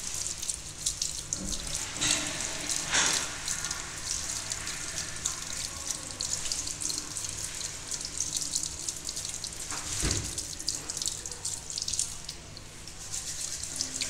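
Tap water running onto hands and splashing into a ceramic washbasin, a steady hiss throughout.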